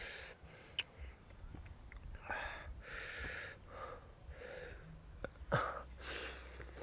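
Close-up eating noises of a man eating roast duck with his hands: several short, breathy sucking and chewing sounds as he pulls meat off the bones with his mouth, with a sharp click about five and a half seconds in.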